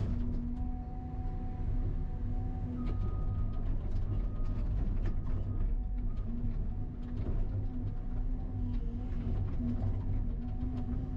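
Cat hydraulic excavator running under load, heard from inside its cab: a steady low diesel rumble with whining tones that come and go as the hydraulics work, and scattered light knocks as the bucket digs through brush and soil.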